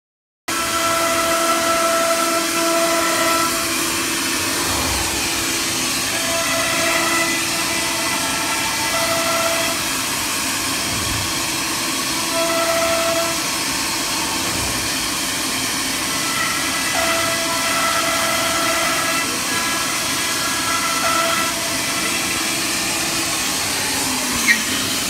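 ATC CNC router with a 9 kW spindle running: a loud, steady hiss with whining tones that start and stop every second or two. The sound starts suddenly about half a second in, and there is one sharp click near the end.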